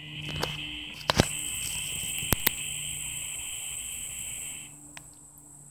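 Insect buzzing: a loud, shrill, steady drone that cuts off near the end, with a thin higher whine over it and a few sharp clicks.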